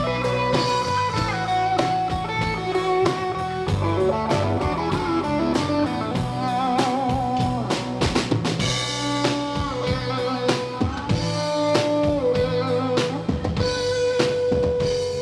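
Live band playing an instrumental break: a guitar lead with bending, wavering notes over drum kit and bass.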